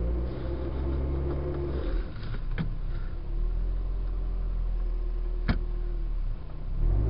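Car engine running and revving while the car sits stuck in snow, its wheels not finding traction. The engine pitch rises near the start and again near the end, and two sharp clicks come in between.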